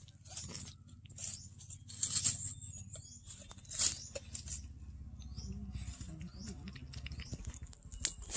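A calico cat crunching and chewing crisp food in quick, irregular bites, with a steady low growl held underneath that fades out near the end.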